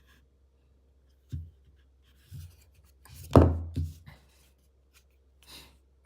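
Handling noises: a few knocks and thuds of an object being set down and moved on a hard surface, the loudest about three and a half seconds in, with light scraping and rustling between them.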